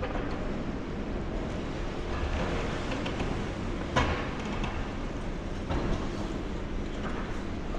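High-reach demolition excavator running while its boom-mounted jaws grip and tug at a section of a concrete tower block that is not yet coming away. The machine and site give a steady rumble, with a sharp crack about four seconds in and a smaller knock near the end.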